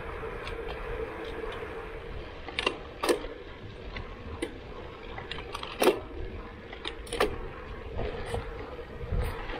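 A bicycle rolling along asphalt: steady tyre and wind noise with a faint steady hum, broken by a dozen sharp clicks and rattles as the bike jolts over bumps, the loudest about 3 and 6 seconds in.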